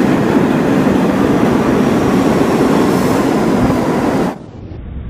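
New York City subway train pulling into the station and running past the platform, a loud steady rumble of wheels on rail. About four seconds in it abruptly drops in level and turns dull and muffled as the recording switches to slowed-down slow-motion playback.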